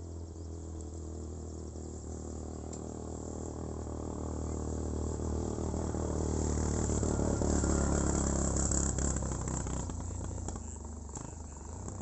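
A motor vehicle's engine passing by, growing louder to a peak about two-thirds of the way in and then fading, over a high steady hum of insects.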